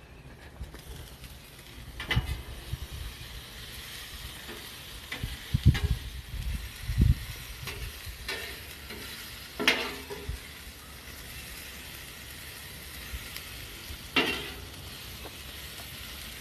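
Steak strips and sliced bell peppers sizzling steadily on a gas grill's flat griddle plate, the hiss coming up about a second in as the lid is raised. A metal utensil scrapes and clanks against the griddle every few seconds as the food is turned.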